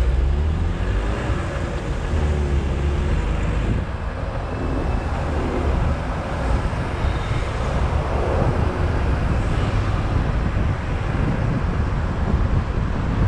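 Car driving through city traffic: steady road and tyre noise with low wind rumble on the action camera's microphone.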